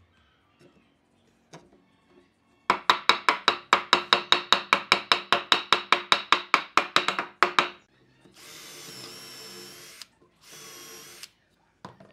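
Rapid hammering on a wooden joint, about six sharp blows a second for some five seconds. Then an electric drill boring dowel holes into the wood in two runs, one of about two seconds and a shorter one of about a second, with a whine that wavers as it cuts.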